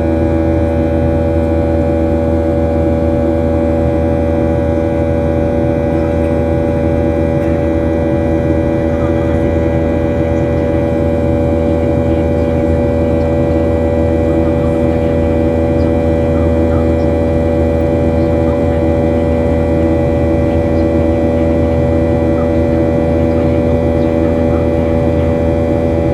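Jet engines of a Boeing 737-800 running steadily: a constant loud hum with several steady whining tones layered over it, unchanging throughout.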